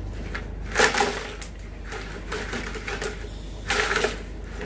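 Hard plastic toy parts clicking and clattering as they are handled, with two louder clatters: one about a second in and one near the end.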